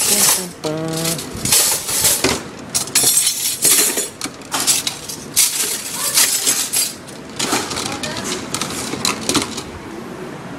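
Dishes and cutlery being hand-washed, with irregular clattering and clinking of plates, glasses and utensils against each other and the sink.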